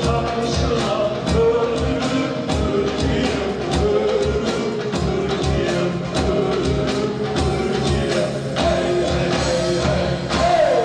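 A man singing a Turkish folk song over band accompaniment with a steady drum beat.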